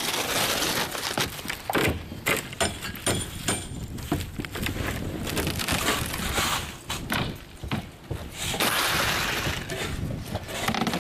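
Old roof decking boards being pried up and torn off, with repeated cracking and breaking of wood, knocks and scraping.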